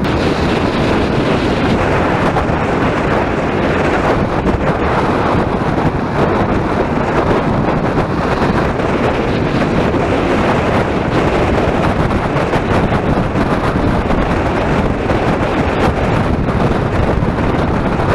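Wind rushing hard over the microphone of a motorcycle camera at riding speed, a steady roar with the motorcycle's engine and road noise underneath.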